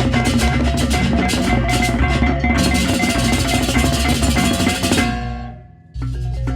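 Baleganjur backing music: Balinese processional gamelan of drums, clashing cymbals and gongs playing a fast, dense rhythm. It dies away about five seconds in and cuts back in abruptly a second later.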